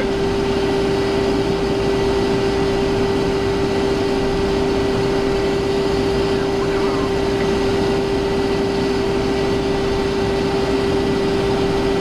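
Steady cockpit noise of a Cessna Citation XLS business jet in the climb: an even rush of airflow and engine hum with one constant drone.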